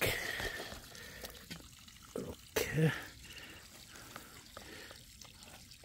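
Wet squelching and sloshing as a hand kneads a cotton garment in a basin of muddy red clay water, with dripping and small splashes.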